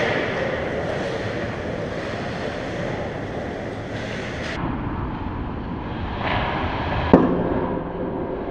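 Ice hockey rink sound: skates scraping on the ice under a steady wash of arena noise, with one sharp crack about seven seconds in as play reaches the net.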